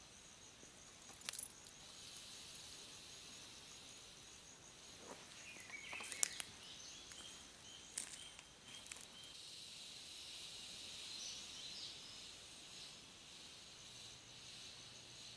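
Quiet forest ambience with a steady, rapidly pulsing high insect trill, and a few faint clicks and knocks of gear being handled.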